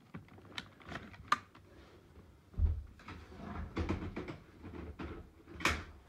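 Scattered clicks and knocks with a few low thuds, like things being handled or set down; no motor is running. One loud sharp click comes near the end.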